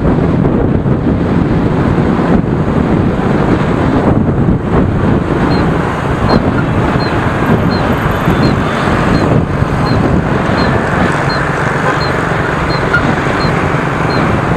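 Wind buffeting the microphone over the steady running of motorbike and scooter traffic, engines and tyres, heard from a moving motorbike. From about the middle on, a faint high chirp repeats about twice a second.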